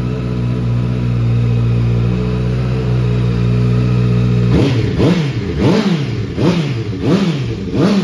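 2019 Honda CBR650R's inline-four engine running through an SC Project aftermarket exhaust. It idles steadily, then a little past halfway it is revved in quick throttle blips, five in a row about 0.7 s apart, each rising and falling back.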